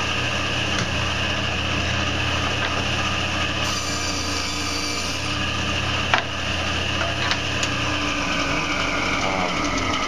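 A 10-inch table saw runs with a steady motor whine and hum while a small piece of wood is pushed through the blade along the fence, cutting a shallow groove that does not go all the way through. A sharp knock comes about six seconds in, and the whine falls slightly in pitch near the end.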